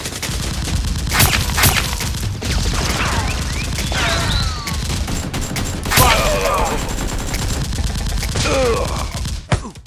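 Sustained rapid gunfire, a dense crackle of shots, with high sliding cries cutting through it about three, six and eight and a half seconds in. The firing stops abruptly near the end.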